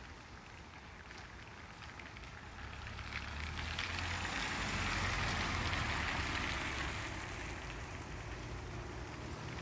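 A car driving past on a wet street: tyre hiss on the wet road, with a low engine hum, swells to its loudest about five seconds in and then eases off to a steady hiss.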